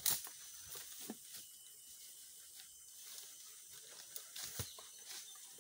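A bull Sumatran elephant feeding, its trunk ripping up grass and undergrowth: scattered rustling and tearing with a few sharper snaps, the loudest just after the start and about four and a half seconds in.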